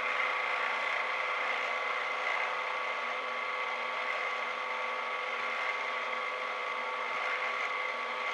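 Drill press running steadily, a whine with a few held tones over motor hiss, as a small twist drill bores into a wooden screwdriver handle near its shank end.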